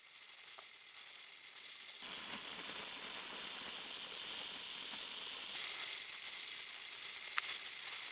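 Faint steady hiss of quiet room tone, stepping up in level about two seconds in and changing again past the middle, with one soft click near the end.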